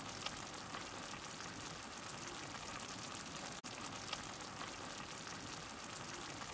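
Curry of chopped greens cooking in a blackened wok over a wood fire, with a steady sizzle.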